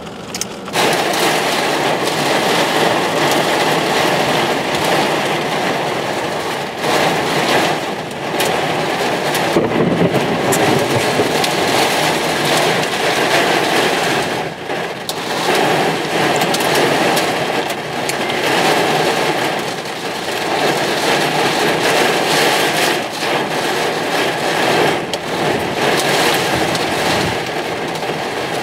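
Heavy thunderstorm rain driven by strong wind, a dense steady rush that swells and eases with the gusts.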